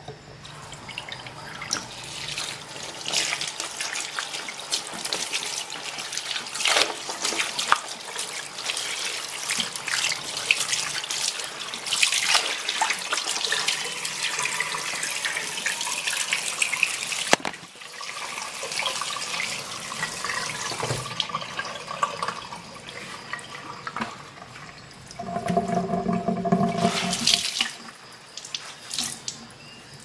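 Kitchen mixer tap running hard into a sink, the water splashing onto a cloth held under the stream. The flow cuts off sharply about halfway through, followed by quieter trickling and drips. Near the end comes a few seconds of running water with a steady humming tone.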